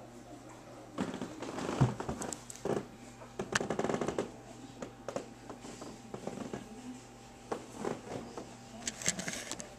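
Camera handling noise as the camera is moved and set down on the floor: a run of knocks, rubs and scrapes, loudest about two seconds in, then scattered clicks.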